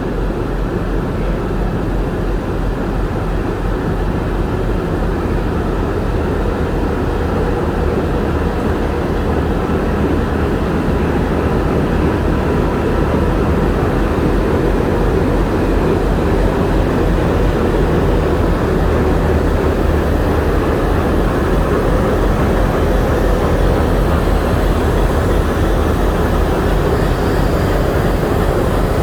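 WDG3A diesel locomotive's ALCO 251 sixteen-cylinder turbocharged engine idling: a steady, low, continuous rumble that grows slightly louder over the second half.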